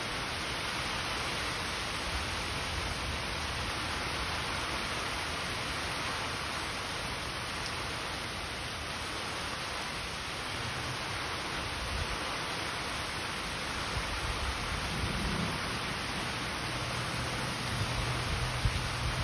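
Heavy rain pouring steadily onto grass, trees and a waterlogged road, as an even hiss. A low rumble swells in about two-thirds of the way through and again near the end.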